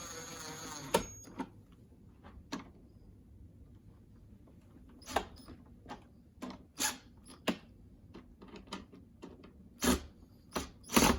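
A small electric screwdriver whirring, stopping about a second in, then scattered clicks and knocks of the air purifier's plastic UV lamp cover and screws being fitted back by hand. The loudest knocks come near the end.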